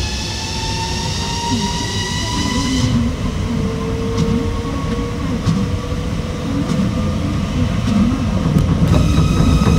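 Running sound of an Osaka Monorail 2000 series rubber-tyred straddle monorail train under way, with a steady low rumble and a motor whine rising in pitch as it gathers speed. The higher whine tones cut out abruptly about three seconds in, and a new set of whine tones comes in near the end.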